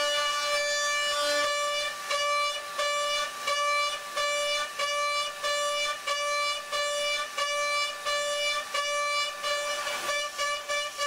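Datron high-speed CNC spindle milling aluminium with an end mill: a steady, high-pitched cutting whine. From about two seconds in it breaks off and returns nearly twice a second as the cutter moves in and out of the cut.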